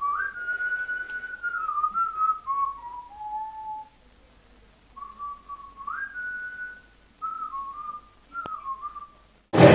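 A person whistling a melody in two phrases, with a pause of about a second between them. Near the end a loud crowd chant cuts in suddenly.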